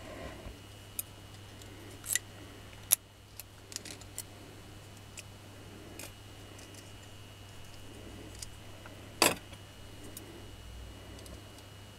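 Small metal hand tools and parts being picked up and handled on a workbench: a scatter of sharp clicks and clacks, the loudest about three seconds in and another just after nine seconds, over a steady low hum.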